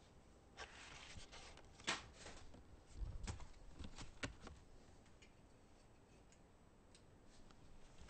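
Faint handling noise of a webcam being moved: scattered clicks and light knocks, with a few low bumps about three seconds in.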